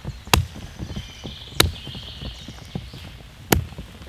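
Small hatchet chopping into an old dead tree stump: three sharp, separate blows of steel biting dry wood, each a second or two apart.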